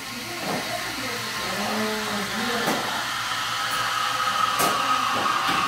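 Espresso machine steam wand hissing steadily as it steams milk, with a steady high whistle-like tone coming in over the hiss about halfway through. A few sharp clinks of crockery sound over it.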